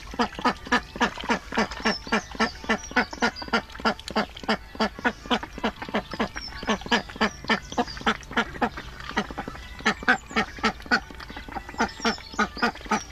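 Ducks quacking in a rapid, steady series of short calls, about three a second.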